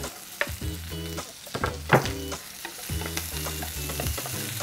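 Chopped onions and green and red chillies sizzling in hot oil in a frying pan, with a wooden spatula knocking and scraping against the pan as they are tipped in and stirred.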